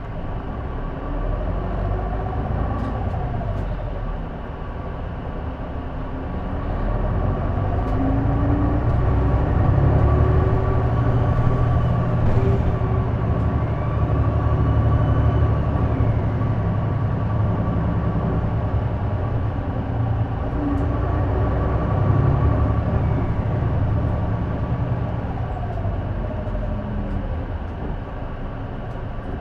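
Engine of a J-Bus-built city bus under way, louder from about seven seconds in as it pulls harder. A steady high whine runs over the engine: the strange noise that the uploader traces to the exhaust or turbo.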